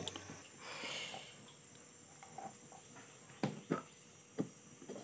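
A brief soft sizzle from a lidded frying pan about a second in, then a few light knocks of ceramic plates and bowls being handled on a table, spaced apart in the second half.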